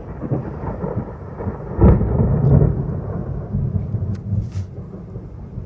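Loud thunder. A rumble builds, a sharp crack about two seconds in is the loudest point, and then the rumble rolls on and slowly fades.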